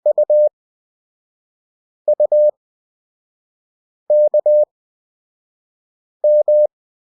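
Morse code practice tone, a steady beep near 600 Hz keyed at 20 WPM character speed with long Farnsworth gaps. Four characters sound about two seconds apart: dot-dot-dash (U), dot-dot-dash (U), dash-dot-dash (K) and dash-dash (M).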